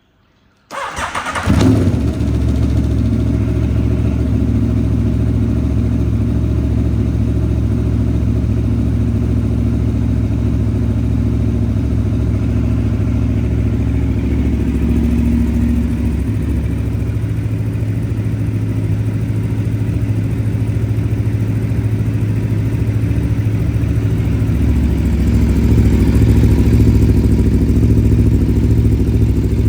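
Aprilia Tuono V4 1100 Factory's V4 engine, breathing through a carbon Akrapovic exhaust, starting up about a second in and settling into a steady idle.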